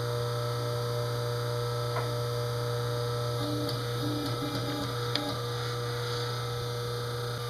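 Steady low hum from the pull-test rig while a weathered 1-inch Spectra webbing sling takes rising load. In the second half, a few short low squeaks and faint ticks come from the webbing and hardware tightening under tension.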